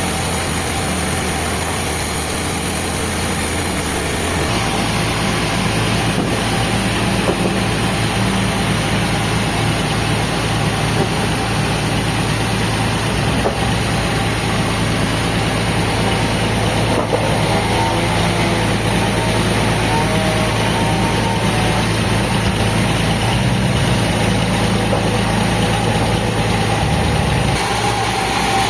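Heavy sawmill machinery engine running steadily, its hum changing abruptly about four seconds in and again near the end.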